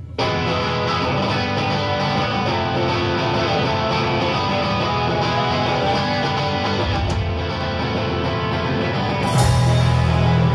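Live rock band playing: electric guitar-led song with bass and drums, starting abruptly. About nine seconds in the music gets suddenly louder, with a bright burst and a heavier bass line.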